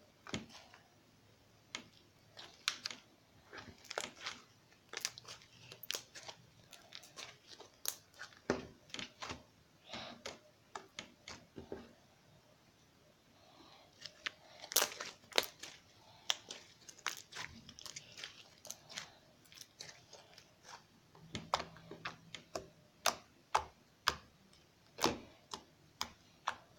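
Glue slime made with shaving foam and borax water being squeezed and stretched by hand, giving irregular sticky pops and clicks, with a short pause about halfway through.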